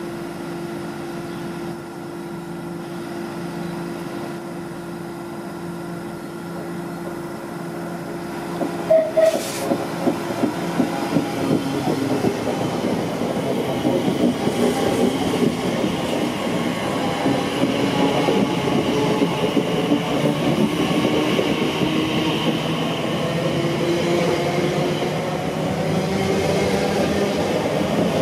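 Class 345 Aventra electric multiple unit, first with a steady hum at the platform. About nine seconds in come a short tone, a click and a quick run of evenly spaced pulses, and then the train moves off: wheel and rail rumble rises, with traction motor tones gliding upward as it gathers speed.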